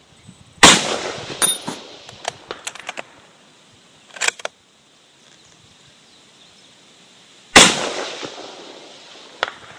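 .260 bolt-action hunting rifle (GA Precision Non-Typical) fired twice, about seven seconds apart, each shot a sharp crack with a rolling tail that dies away over a second or two. Between the shots come short metallic clicks and clacks of the bolt being worked.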